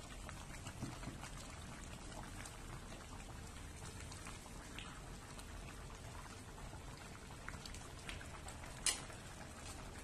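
Pan of chopped vegetables simmering in broth, bubbling with a steady stream of small pops. A single sharp click near the end stands out above the bubbling.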